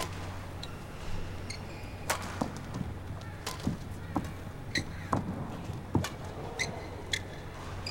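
Badminton rally in women's singles: rackets strike the shuttlecock again and again in short, sharp hits, roughly one every half second to a second, over the low hum of the arena.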